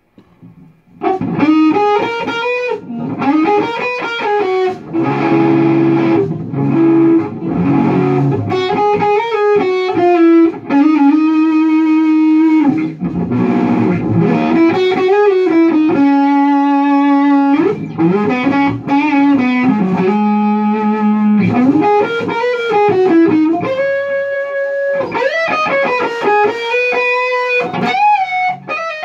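Electric guitar played through a Lone Wolf Audio Left Hand Wrath distortion pedal set for a mid-gain, Marshall-like tone. From about a second in it plays rock lead lines: single notes with string bends, several long held notes with vibrato, and a few chords in between.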